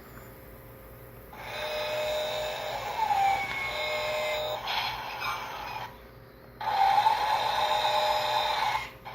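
Small electric motors and gears of a remote-control toy bulldozer whirring. It runs in two spells of a few seconds each, with a short pause between them.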